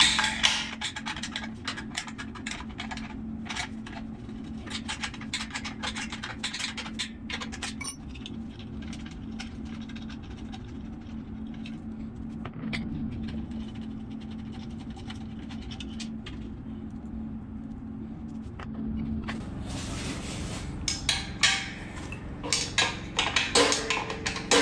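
Small metal clinks, clicks and scrapes of bolts and hand tools as the electric motor's mounting hardware is taken off an air compressor. The clinks come in irregular clusters, busiest near the start and again near the end, over a steady low hum that fades out a few seconds before the end.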